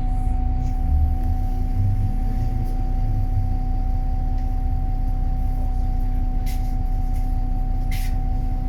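Wright Pulsar 2 bus with its Cummins ISB diesel engine running, a steady low rumble with a constant whine over it, heavier for the first few seconds. Two short clicks come late on.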